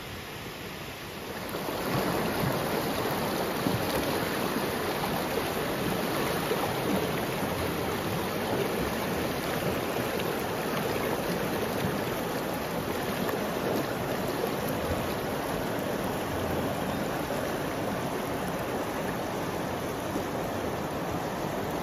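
Fast-flowing, swollen muddy river rushing past, a steady loud rush of water that swells up about a second and a half in and stays even.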